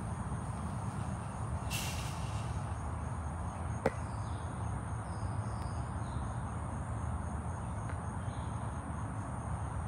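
Outdoor background: a thin, high, steady drone of insects over a steady low rumble on the microphone, with a brief hiss about two seconds in and a single sharp click about four seconds in.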